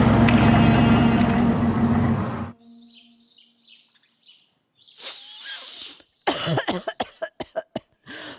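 Background film music that stops suddenly about two and a half seconds in. Then faint bird chirps, and from about six seconds a person coughing repeatedly in short, hard coughs.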